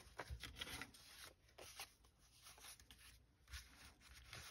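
Near silence with faint, irregular rustles and small ticks of paper sheets and stickers being handled and leafed through.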